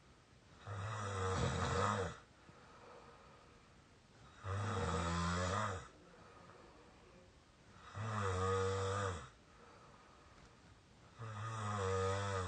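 A sleeping person snoring with a squeaky sound: four snores, each about a second and a half long, coming roughly every three and a half seconds.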